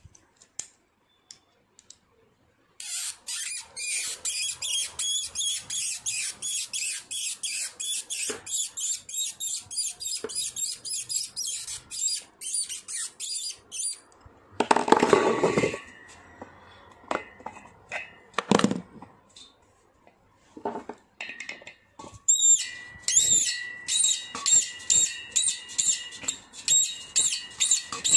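Spin mop's jammed spindle and bearing squeaking as it is twisted back and forth with pliers after oiling: rapid, repeated high squeaks, several a second. A louder clatter comes about halfway through, and near the end the squeaking resumes, with a thin whistling tone, as the spindle is turned inside the metal spin drum.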